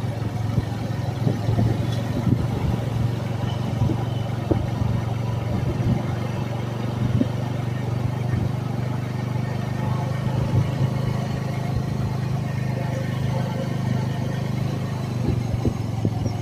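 Engine of a slow-moving road vehicle running with a steady low hum, under road and wind noise and a few small knocks and rattles.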